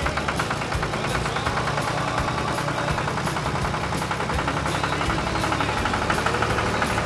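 Vintage tractor engine running at a steady pace as the tractor drives along the road, with a fast, even pulsing of its exhaust beat.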